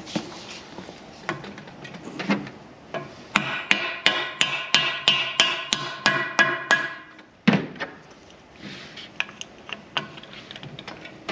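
Mallet tapping plastic end caps into the ends of aluminium extrusion load bars. About three seconds in comes a quick run of about a dozen taps, around three a second, then one harder knock and lighter scattered knocks as the bars are handled.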